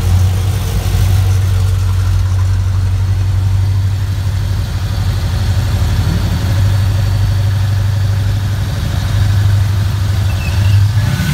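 Classic muscle-car engines rumbling at low speed as cars roll past one after another, first a Pontiac Firebird, then a late-1960s Chevelle. A steady low drone that swells a little near the end.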